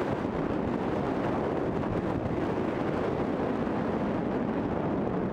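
Steady rushing wind noise buffeting the microphone of a camera travelling fast downhill on snow, mixed with the hiss of sliding over the groomed snow.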